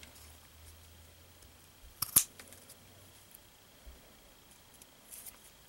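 Scissors snipping the corner off a thin chipboard strip: one sharp snip about two seconds in, with a few faint clicks of handling around it.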